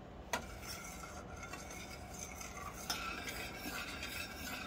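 A spoon stirring a thick gelatin bait mixture in a stainless steel saucepan as it comes up to a boil, scraping around the pan. A sharp clink against the pan comes about a third of a second in and another near three seconds, with busier scraping after it.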